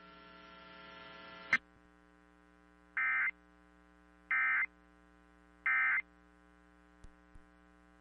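Emergency Alert System end-of-message data bursts: three short, identical buzzy data tones, about 1.3 s apart, that close the alert. Before them, faint radio hiss cuts off with a click, and a steady low hum runs under them.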